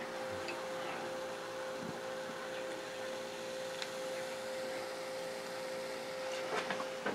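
A steady hum from a running appliance or fan, holding one even tone, with a few faint clicks and taps near the end.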